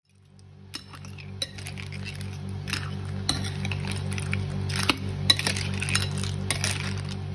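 Metal spoon clinking and scraping against a ceramic bowl while tossing a salad of blood cockles in their shells, with many irregular clinks, the sharpest about five seconds in. Steady background music underneath.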